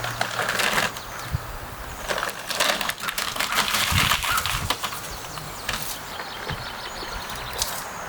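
Sticks and brush being handled for a campfire: irregular rustling with sharp snaps and clicks of wood, busiest a few seconds in.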